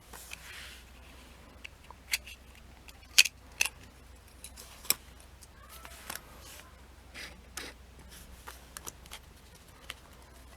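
Small hard parts being handled: a string of irregular sharp clicks and light taps, with a few louder snaps in the first half, over a faint steady hum.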